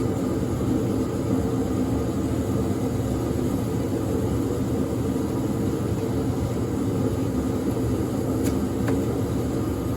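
Steady mechanical hum, with a couple of faint clicks near the end.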